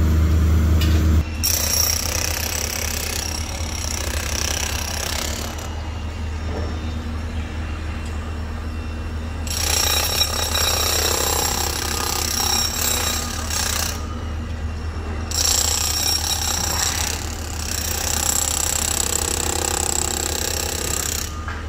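Handheld demolition breaker hammering at the brickwork of a building front, in three bursts of about four to six seconds each. A steady low hum runs underneath.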